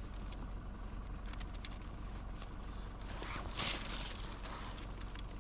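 Faint scuffs and ticks of a gloved hand picking cigarette butts out of a crack in concrete, with a brief rustle of a plastic rubbish bag about three and a half seconds in, over a steady low background hum.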